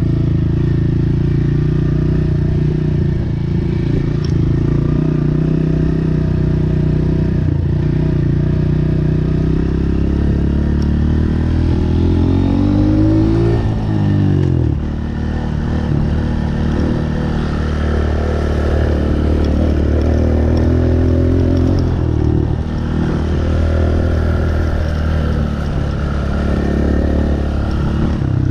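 Honda CRF125F Big Wheel dirt bike's single-cylinder four-stroke engine running steadily under throttle while being ridden. About halfway through, the engine revs up sharply and then drops back.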